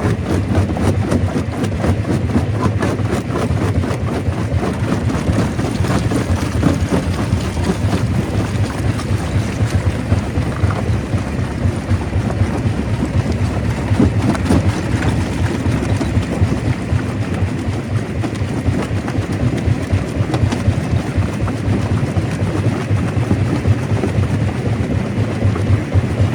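Stone crusher running: a steady heavy rumble with a dense rattle and crackle of rock being broken.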